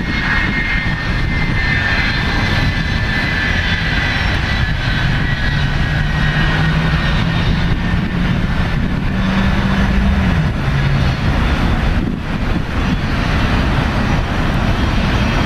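Jet airliner engines running with a continuous rushing noise. A high whine fades slightly lower over the first few seconds, and a low hum rises and then drops about ten seconds in.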